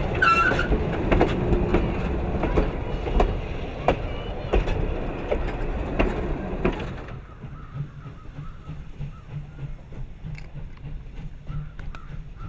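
A steam train's passenger cars rolling past on the track, wheels clacking over rail joints about every two-thirds of a second, with a brief squeal near the start. About seven seconds in the train sound drops away suddenly, leaving a quieter low pulsing.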